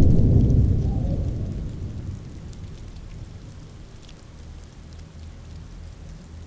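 A rumble of thunder that fades away over the first two seconds or so, leaving a faint, steady patter of rain.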